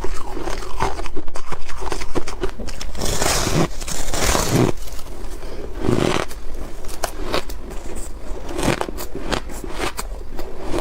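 Ice being bitten and chewed close to the microphone: rapid crisp crunches, with denser, louder crunching about three to five seconds in and again around six seconds.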